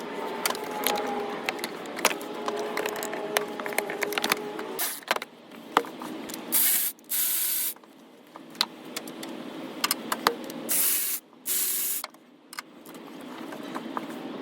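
Hand tools clicking and clinking as the starter's mounting bolts are worked loose, with two short hissing bursts about a second long, one about seven seconds in and another about eleven seconds in.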